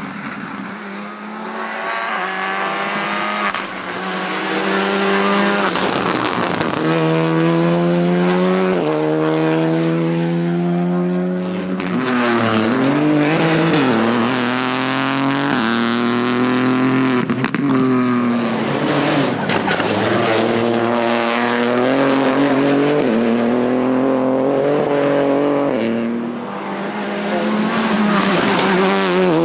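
Rally car engines at full race pace, revving hard and shifting up through the gears. The pitch climbs in steps and drops off again several times as the cars brake and accelerate through the stage.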